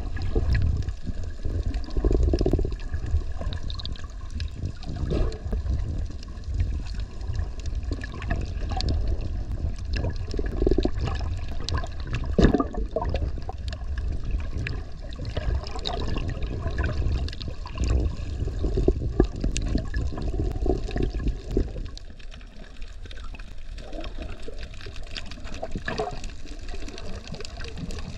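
Water sloshing and surging around a camera held underwater, heard as a muffled, uneven low rumble with small clicks and splashes; it becomes quieter in the last few seconds.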